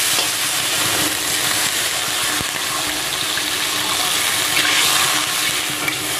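Water poured into a hot kadai of fried onion-tomato masala, the spice paste hissing and bubbling as it is stirred with a wooden spatula and comes up towards the boil.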